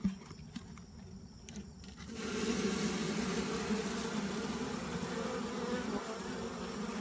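Honeybees buzzing in a steady hum that swells up suddenly about two seconds in, as the hive's feeding hole is uncovered by lifting off the syrup jar. A faint knock right at the start.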